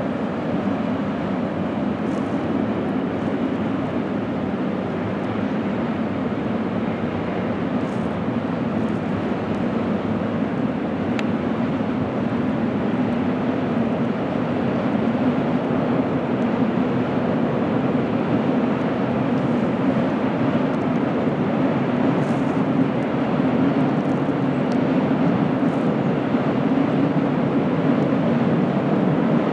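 Freight train of container wagons rolling over a stone viaduct: a steady rumble that grows a little louder over the second half.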